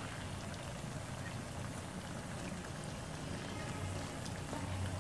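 Jilapi batter spirals deep-frying in hot oil in a karai: a steady sizzle with scattered small pops.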